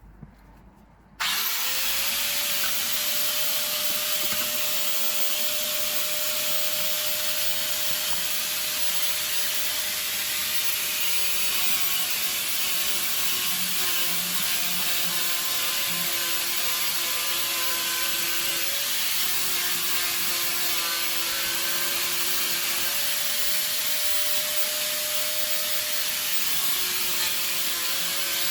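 Angle grinder fitted with a homemade sanding disc built on an old CD, switched on about a second in and spinning up quickly. It then runs steadily while sanding, its whine shifting in pitch from time to time.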